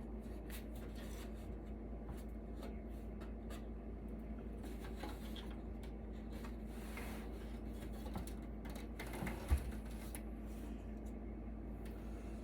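Scattered light clicks, taps and rubbing from handling and working on a metal electronics chassis during disassembly, with one low thump about nine and a half seconds in, over a steady low hum.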